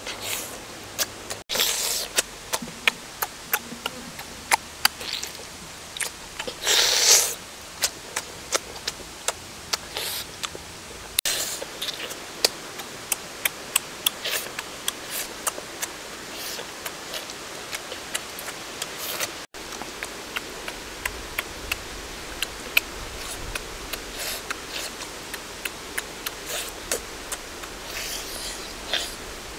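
Close-up eating sounds: a person chewing grilled pig intestines with many sharp, irregular lip smacks and mouth clicks, and a loud breathy burst about seven seconds in.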